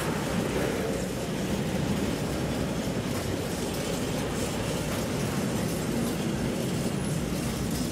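Freight train of rail tank wagons passing close by: the steady noise of steel wheels running on the rails and the wagons rolling past.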